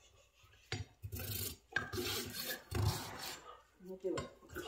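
Farrier's rasp filing a horse's hoof on a hoof stand in about four long strokes, roughly a second apart, as the trim is finished.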